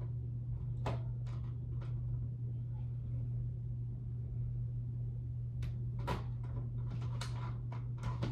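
Plastic clicks and knocks of a fire alarm being handled and worked into its mount: a few scattered at first, then a quick cluster in the second half. A steady low hum runs underneath.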